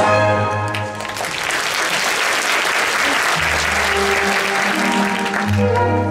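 Audience applauding over a live orchestra. The applause swells about a second in and covers the music, and near the end sustained orchestral notes come through again.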